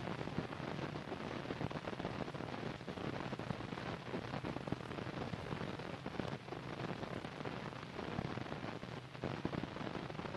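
Steady hiss and fine crackle of an old optical film soundtrack, with no speech or music.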